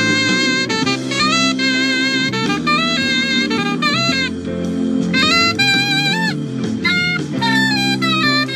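Instrumental soul jam: a lead melody of held notes with a slight waver, some bending up or down, over sustained backing chords.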